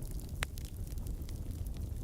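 Fire burning in a fireplace: a steady low rumble of the flames with many small crackles, and one sharper crack about half a second in.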